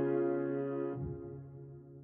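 Background music: a sustained electric piano chord dying away as the track fades out.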